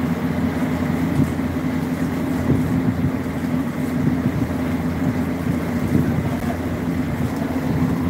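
Outdoor air-conditioner condenser units running with a steady low mechanical hum.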